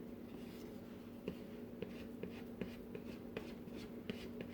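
Dough scraper scraping and tapping on the work surface while lifting sticky cinnamon-roll dough, as a series of light scattered clicks and scrapes. A steady low hum runs underneath.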